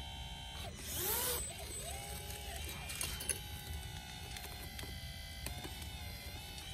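Electric hydraulic pump of a Double E EC160 RC excavator with a hydraulic conversion whining as the boom, arm and bucket work under load, its pitch bending up and down as the load changes.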